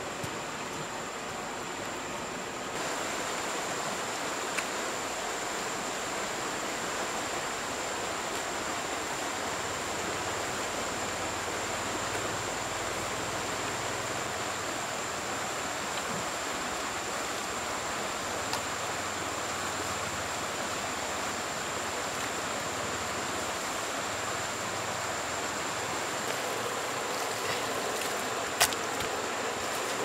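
Steady rush of flowing river water, with a thin steady high tone over it and a sharp click near the end.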